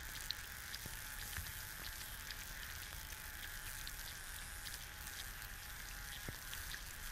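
Egg frying in a pan: a steady sizzle of fat bubbling around the egg white, with scattered small pops and ticks, and a faint steady tone beneath.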